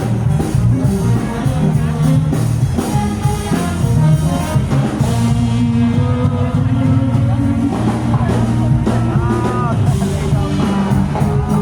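Live rock band playing with drum kit, bass and guitar, the drums keeping a steady beat.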